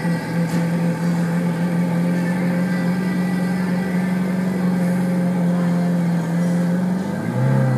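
Ferrari F430's 4.3-litre V8 idling steadily, with a short rev blip near the end that rises and falls in pitch.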